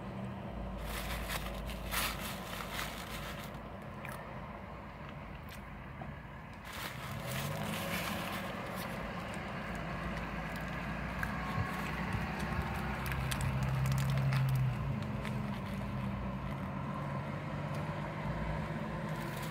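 Close-up eating sounds: biting and chewing a toasted banh mi sandwich, with crackling crunches of the crusty bread and rustles of its paper wrapper, over a low vehicle hum.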